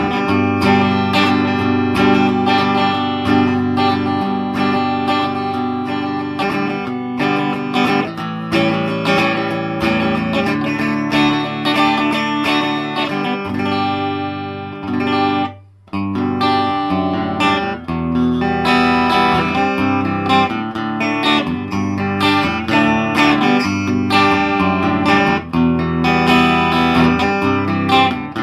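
Rickenbacker electric guitar played through a hand-built Ted Weber Natalie tube amp (four 6V6 power tubes) on its bright channel, with both pickups on, tone knobs rolled back, bass up and treble down: a clean, articulate tone. The playing stops briefly about halfway through, then picks up again.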